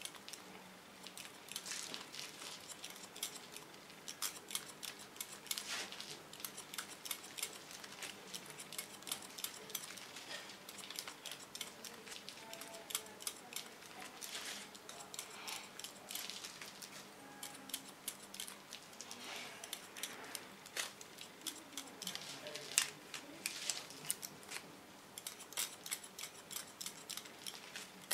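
Hairdressing scissors snipping short wet hair cut over a comb: many light, quick snips in irregular clusters.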